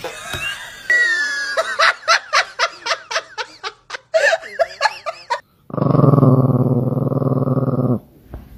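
A run of short, high yelping calls, about three a second, then a loud, low, steady animal growl lasting about two seconds that cuts off abruptly.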